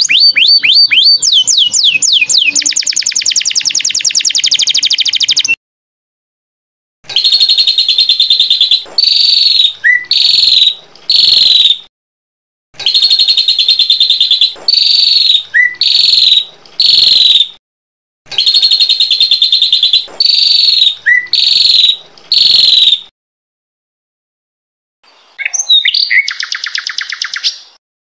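Recorded small songbird song. A fast trill of rising whistled sweeps runs for about five seconds and stops. After a short pause, the same chattering phrase of bright notes repeats three times with brief gaps, and a shorter phrase comes near the end.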